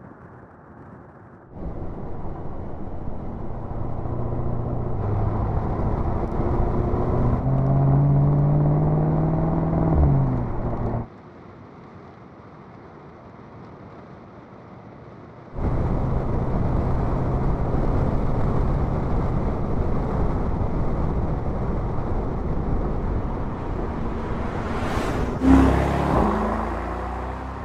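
Mercedes-AMG SL 55's twin-turbo V8 exhaust while driving: the engine note climbs in pitch under acceleration for several seconds, drops as it shifts, and cuts off abruptly. After a quieter stretch it runs loud and steady at speed, and near the end a sharp rush of a close pass-by stands out before the sound fades.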